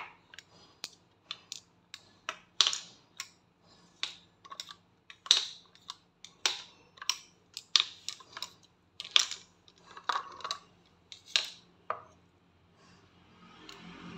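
Plastic stick-lids of an ice-lolly mould being pulled out of the plastic tray one by one and set down: a string of irregular sharp plastic clicks and clacks. Near the end the clicks stop and a soft pouring begins as thick chocolate ice-cream mix runs from a steel tumbler into the mould.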